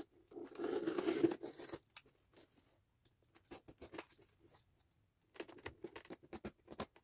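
Box cutter slicing through packing tape on a cardboard parcel, with tearing and scraping of tape and cardboard: one longer rasping cut early, then a run of short scratchy strokes.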